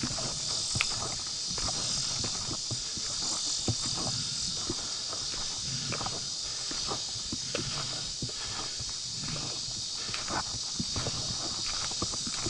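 Footsteps of hikers on a trail, irregular scuffs and knocks, over a steady high-pitched insect chorus.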